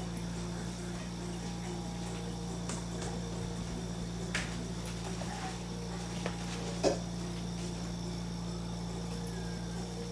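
Steady low hum and hiss of room and recording noise, with a few faint short clicks, the most noticeable about four and seven seconds in.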